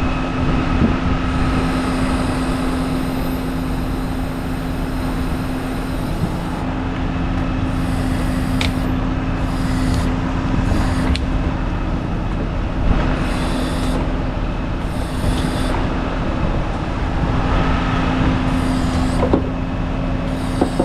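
Heavy equipment's engine running steadily, with repeated short bursts of hiss.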